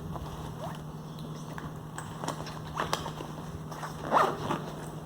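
Handbag being handled: a zipper on a pocket pulled in a few short rasps, with small clicks and rustles of the bag and its contents. A steady low hum runs underneath.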